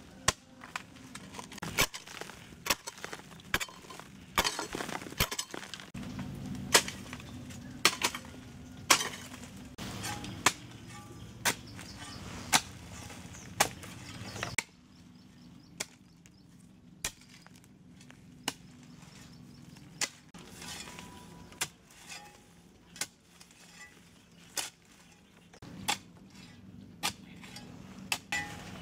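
A hoe and then a shovel chopping down into hard, stony clay soil: repeated sharp strikes about one a second, quieter from about halfway.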